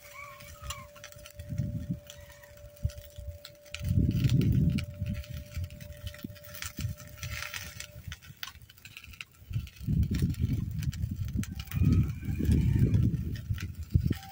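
Wind buffeting the microphone in gusts, with two long rumbling gusts about four and ten seconds in, over a thin steady hum that stops about eight seconds in.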